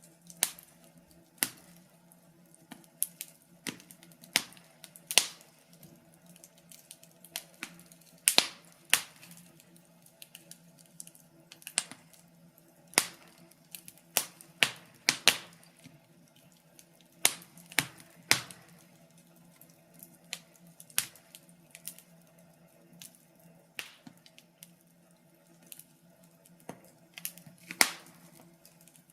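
Wood fire crackling, with sharp irregular pops and snaps, some close together and some a second or two apart. Under them runs a faint steady low hum.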